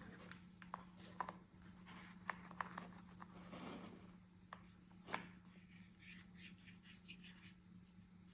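Quiet handling of a phone box and its packaging: small sharp clicks and taps, a brief soft rustle, then quick scratchy rustles near the end, over a steady low hum.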